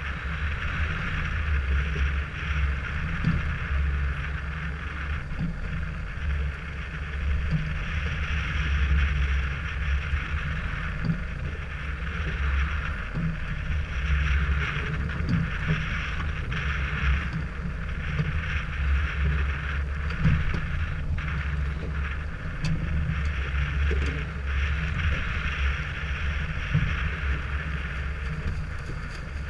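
Motorboat underway: a steady low engine drone with wind and water rushing past the hull, the rush swelling and easing.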